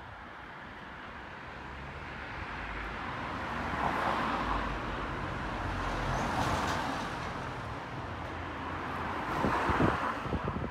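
Road traffic passing: the sound of vehicles swells and fades several times, loudest about four seconds in, again around six to seven seconds, and near the end. A few short knocks come near the end.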